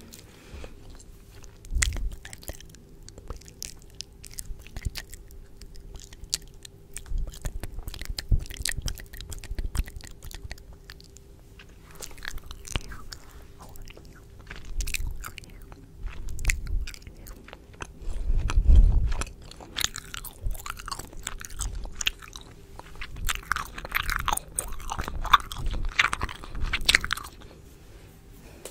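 Close-miked ASMR mouth sounds: rapid wet clicks and smacks of lips and tongue, with a few soft low thumps on the microphone, the loudest about 19 seconds in, and a busier stretch of clicking near the end.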